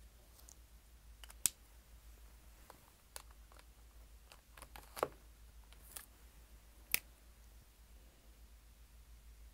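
A handful of sharp clicks and taps from a marker and things being handled on a desk. The three loudest come about a second and a half, five and seven seconds in, with fainter ones between, over a faint steady low hum.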